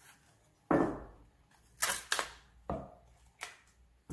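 Chef's knife trimming a raw fennel bulb on a bamboo cutting board: a loud knock about a second in, then four or five sharper, crisper cracks as the tough outer layers are cut and broken off.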